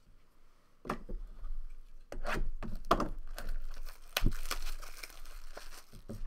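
Packaging being torn open and crinkled while a sealed 2012-13 Upper Deck The Cup hockey card box is unwrapped: irregular rustling and crackling that starts about a second in, with a few sharp snaps.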